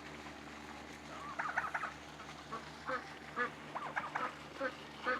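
Domestic ducks quacking: quiet for about a second, then a quick cluster of calls followed by a regular run of short quacks about two a second.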